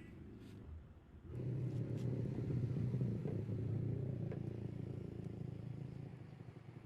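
A low rumble that starts suddenly just over a second in and slowly fades.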